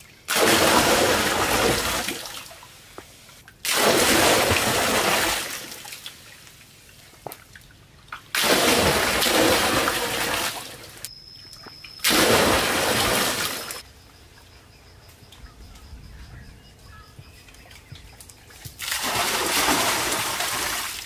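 Water tipped from clay pots splashing into a shallow stone pool, in five separate pours of about two seconds each, each starting suddenly and tailing off.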